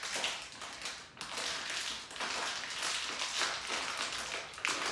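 Clear plastic LEGO parts bag crinkling and rustling in the hands as it is handled and opened, with small crackling taps throughout.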